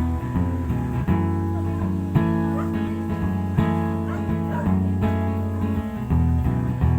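Acoustic guitar playing sustained chords, with a fresh strum about once a second.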